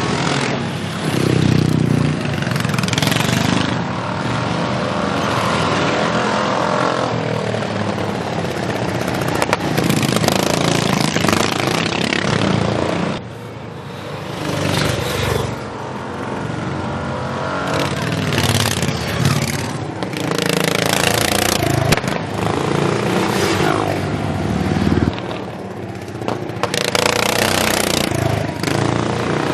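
Racing lawnmower engines revving as the machines pass one after another, the sound swelling and fading with each pass and the pitch sweeping up and down as they go by.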